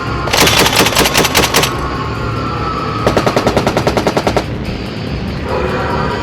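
Two bursts of rapid machine-gun fire, each about a second and a half long, the second at about ten shots a second.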